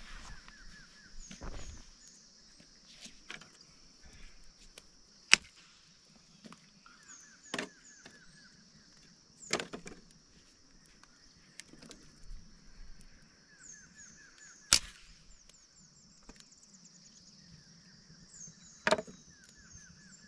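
Sharp knocks and clacks every few seconds, the loudest about five and fifteen seconds in. Under them runs a steady high hiss with repeated rows of short chirps.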